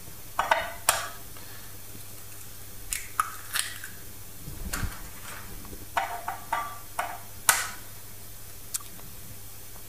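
Eggs being cracked into a glass measuring jug: a scatter of sharp taps of shell against the glass rim and cracks of shells being broken open, some taps with a short ring.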